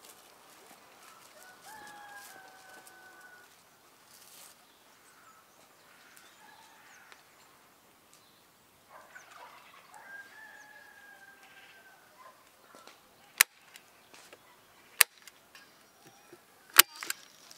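A rooster crowing twice, each crow a long drawn-out call. In the last few seconds come a few sharp knocks, louder than the crows.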